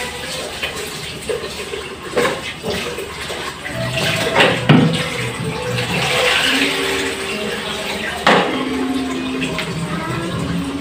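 Tap water running and splashing in a kitchen sink during dishwashing, with dishes and a steel cooking pot knocking against the sink; the sharpest knocks come about two, four and a half, and eight seconds in.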